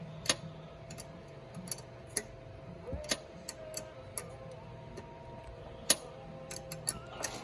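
Irregular small metal clicks and taps as a wrench works the nuts off a mini bike's stock carburetor mounting studs, over a faint steady hum.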